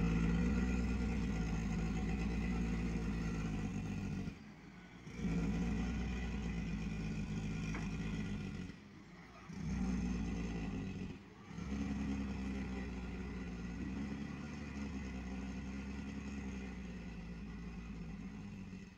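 Engine of a truck loaded with logs running as it drives down a dirt mountain road. The engine sound drops off briefly three times, about four, nine and eleven seconds in, then slowly fades toward the end.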